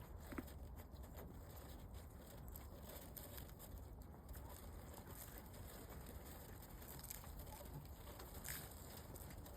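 Pigeons feeding: a few faint pecking taps and soft rustles over a quiet, steady low hum.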